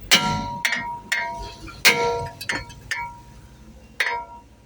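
Hammer striking a Mercedes-Benz GLK brake disc to knock it loose: about seven sharp metallic blows at uneven intervals, the heaviest near the start and about two seconds in, each leaving the disc ringing.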